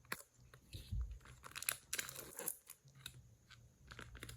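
Cellophane wrapper of a trading-card cello pack being torn open and crinkled, in irregular crackling bursts with sharp clicks, loudest about two seconds in.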